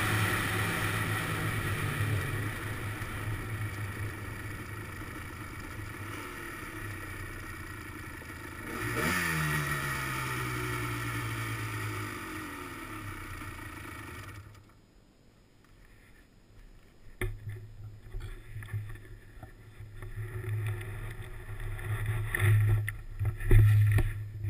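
Honda ATC250R three-wheeler's two-stroke single-cylinder engine running at low speed, blipped once about nine seconds in with its pitch falling back afterwards, then cut off a little past halfway. After that come uneven knocks and rubbing as the camera is handled.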